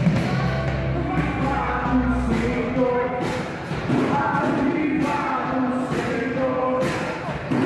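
Worship music: voices singing together over a band, with a steady drum beat and a held bass note that drops out a couple of seconds in.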